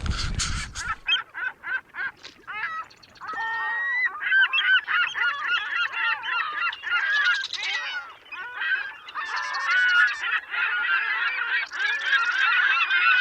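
A flock of birds honking, many short goose-like calls overlapping and growing denser. Wind noise on the microphone cuts off about a second in.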